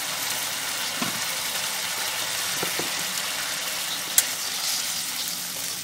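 Ground masala paste for a gravy sizzling in hot oil in a kadhai, a steady hiss, with a light metallic click from the spatula against the pan about four seconds in.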